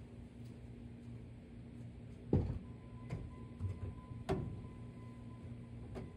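Three clunks and knocks of something being handled, the loudest about two seconds in, over a faint steady low hum. A faint thin tone starts after the first knock.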